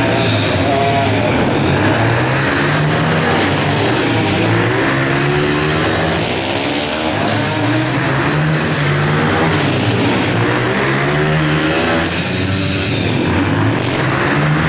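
Several small youth dirt bike engines racing together, each revving up and dropping back in pitch over and over in overlapping waves.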